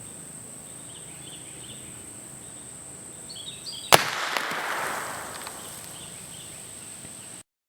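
A single .22 rifle shot about four seconds in: one sharp crack followed by an echo that fades over about a second and a half. Faint chirping and a steady high-pitched tone sit underneath.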